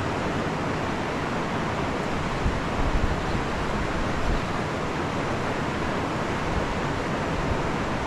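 Steady rush of a mountain stream's flowing water, with a few low buffets of wind on the microphone about three seconds in.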